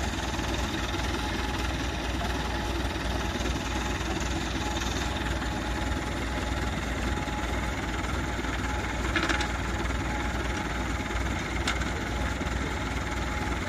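Massey Ferguson tractor engine running steadily at idle, with two short knocks about nine and eleven and a half seconds in.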